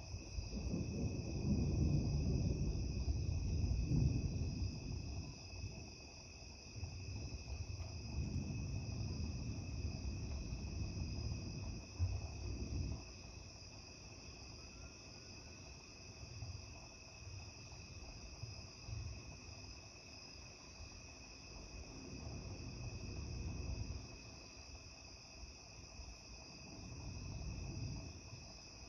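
Steady chorus of night insects, shrilling in several high, even bands. Under it, low rumbling swells rise and fade: the loudest over the first few seconds, another from about eight to thirteen seconds in, and weaker ones near the end.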